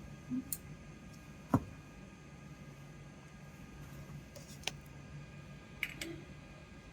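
A few light clicks and knocks of small parts being handled on a handheld laser welding head during a focus adjustment, the sharpest about a second and a half in, over a steady low hum.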